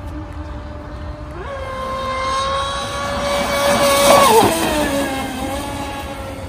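Electric RC mono-hull race boat's motor whining across the water. Its pitch jumps up as the throttle opens about a second and a half in, holds high under a rising hiss of spray, then drops sharply just past the middle as the boat speeds by, settling into a lower steady whine.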